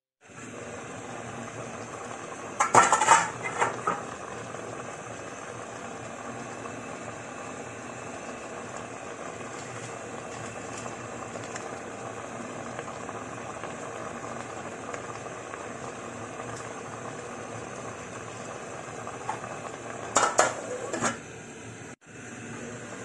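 Tuna in coconut milk simmering in a stainless steel pot, a steady bubbling hiss. Metal clinks and clatter of the lid against the pot come twice, about three seconds in and again near the end.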